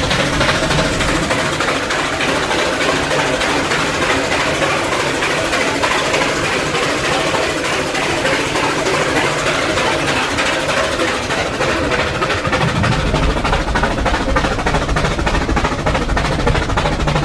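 Rack steam locomotive chuffing steadily as it works uphill, its rapid exhaust beats over a continuous hiss of steam and running noise. The low rumble grows heavier about thirteen seconds in.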